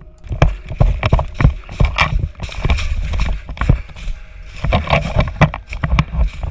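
Running footsteps on the ground, with gear jostling against a helmet-mounted camera: heavy thumps about two or three times a second and rustling between them.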